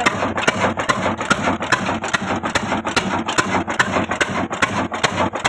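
Old 26 HP horizontal single-cylinder 'black' diesel engine of the Ruston type running steadily, with a regular rhythmic clatter of about five beats a second.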